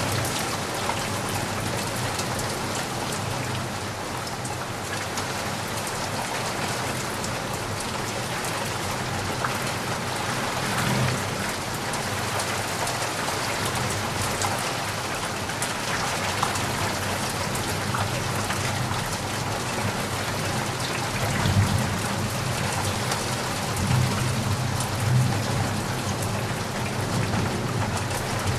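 Steady rain falling, an even hiss with scattered drop patter, and a few brief low rumbles: one about a third of the way in and a cluster near the end.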